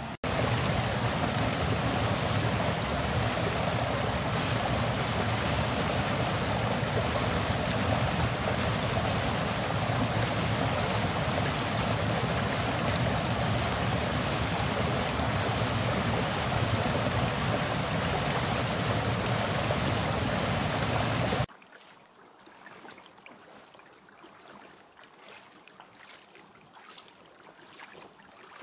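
Small forest waterfall pouring over rocks: a loud, steady rush of water that cuts off suddenly about two-thirds of the way through. After the cut, a much quieter shallow creek with faint splashes of rubber boots wading through the water.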